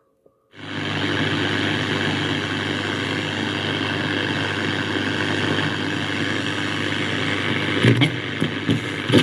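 Restored Philips MW/SW radio switched on, its speaker putting out loud, steady static hiss with a low hum beneath it from about half a second in. A few short crackles come near the end as it is tuned.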